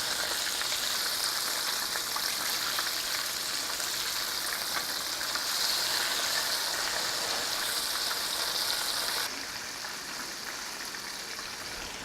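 Breaded turkey cutlets sizzling and crackling in hot oil in a frying pan. The sizzle drops suddenly to a quieter level about nine seconds in.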